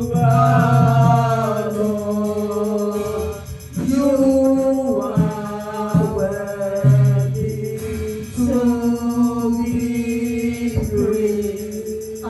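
Gospel worship singing: voices holding long notes in phrases of a few seconds over a sustained low bass accompaniment.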